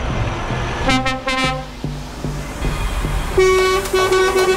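Truck air horns sounding over a running engine's low rumble: a short blast about a second in, then a longer, steady held blast starting about three and a half seconds in.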